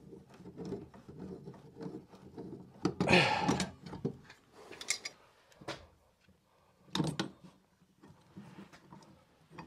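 Pipe wrenches gripping and turning a threaded water-line fitting overhead to break the joint loose: scattered metal knocks, clanks and scraping of the wrench jaws on the pipe. The loudest burst comes about three seconds in, with sharper single knocks later.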